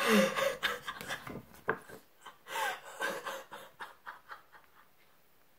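A woman's excited, wordless vocal reaction: breathy gasps, short squeals and giggles in a string of bursts, loudest at the start and dying away near the end.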